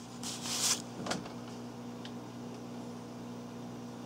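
A short rustle and a sharp key click in the first second and a half, then a faint tick, as a computer keyboard is used to re-enter a command. A steady low electrical hum runs underneath.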